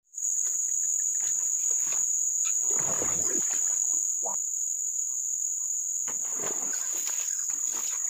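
A steady, high-pitched insect drone from the swampland, unbroken throughout, with a few soft rustles underneath around the middle.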